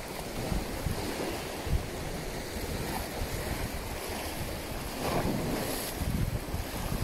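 Wind buffeting the microphone in uneven gusts over the steady wash of sea waves.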